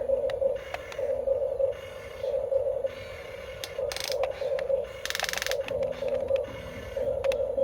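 Small electric gear motors of a toy RC construction machine whirring in short bursts about once a second as the controls are worked, with a brief hissing rush about five seconds in.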